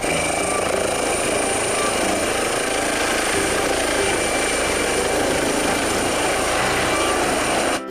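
Air ambulance helicopter lifting off, its rotor and turbine running with a steady high-pitched whine; the sound cuts off suddenly near the end.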